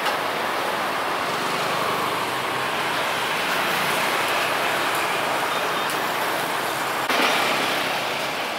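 Steady roadside street noise with traffic going by, growing louder for a moment about seven seconds in.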